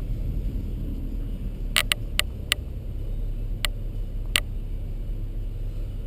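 Low steady rumble heard from inside a car cabin, with six sharp clicks or taps between about two and four and a half seconds in.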